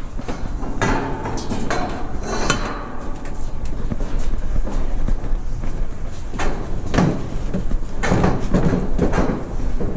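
Scattered clunks, knocks and rustling, with a steady low rumble underneath.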